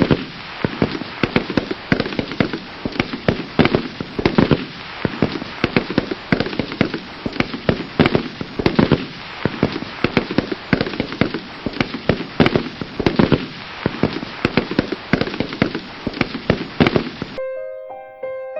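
A dense, irregular volley of many gunshots, crack after crack with no pause, that cuts off suddenly near the end as piano music comes in.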